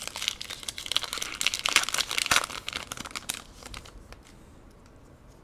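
Plastic Pokémon booster pack wrapper crinkling as it is torn open by hand, a dense crackle that dies away about three and a half seconds in.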